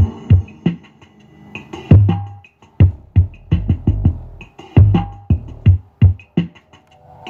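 Electronic music with a drum-machine beat of sharp hits and deep bass thuds, played loud through a Panasonic subwoofer in a bass test.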